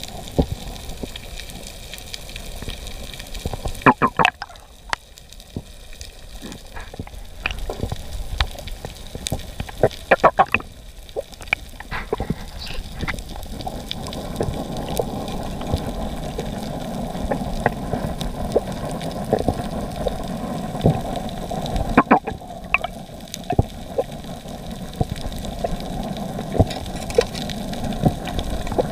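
Underwater sound picked up by a diving camera: a steady rush of water with many scattered sharp clicks and crackles, and a few louder clusters of clicks or knocks about four, ten and twenty-two seconds in.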